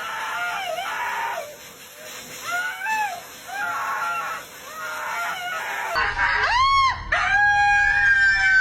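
Animal calls: a string of short, arching pitched calls, then louder calls after a sudden change about six seconds in, ending in one long, slowly falling call.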